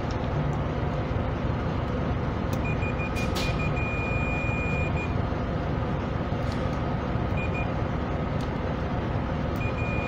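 Fluke digital multimeter's continuity beeper: a high steady beep that stutters briefly about two and a half seconds in, then holds for about two seconds, with a short beep near the middle and another starting near the end, as the test probes make and break contact on the pressure switch's terminals; the beep signals a closed circuit across the contacts. A steady background noise and a few light clicks run under it.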